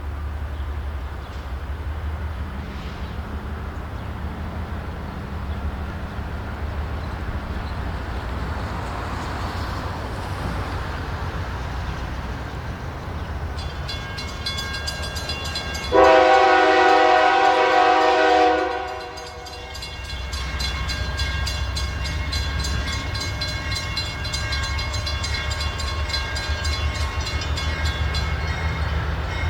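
Diesel freight locomotive running with a steady low rumble, and one long air-horn blast about halfway through lasting under three seconds. Rapid clicking of wheels on the rails runs through the second half.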